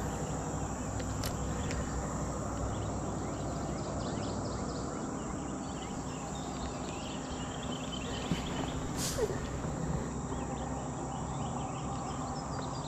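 Steady high-pitched drone of insects, with a low hum underneath and a couple of faint clicks.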